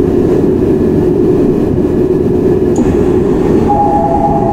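Interior running noise of a Seoul Metro 4000 series GEC Alsthom GTO electric train, a steady deep rumble of wheels and motors. A steady high two-note tone comes in near the end.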